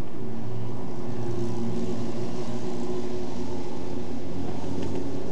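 A pack of Formula Ford 1600 cars running together, their four-cylinder engines giving several overlapping engine notes at a fairly steady pitch as the field circles on a pace lap.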